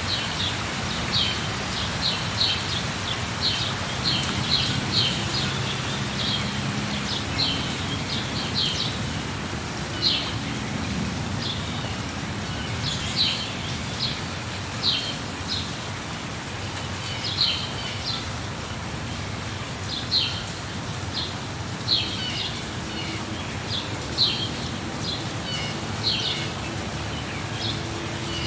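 Birds chirping in short, high calls, in quick runs during the first few seconds and then about one every second or two, over the steady hiss of rain.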